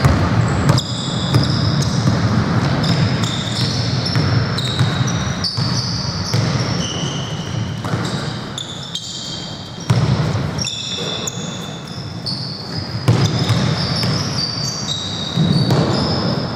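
Basketball game on a hardwood court: sneakers squeaking again and again on the floor and the ball bouncing, echoing in a large gym.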